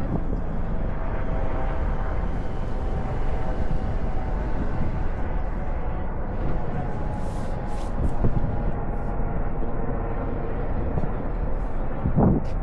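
Steady outdoor rumble with wind buffeting the microphone, and a brief louder sound near the end.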